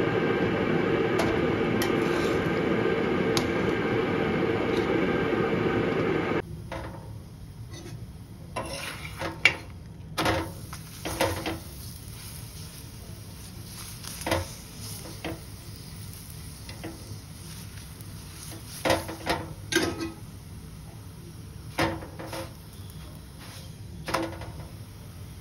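A loud steady machine-like noise that cuts off suddenly about six seconds in, followed by scattered clinks and clatters of kitchen utensils and dishes being handled.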